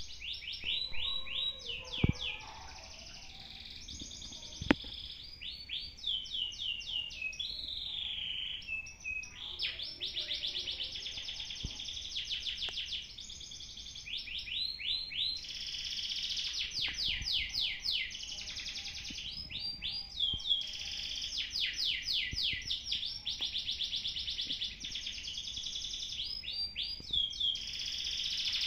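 Canary singing in long runs of fast repeated trills and rolls, with short pauses between phrases. Two sharp clicks sound about two seconds and four and a half seconds in.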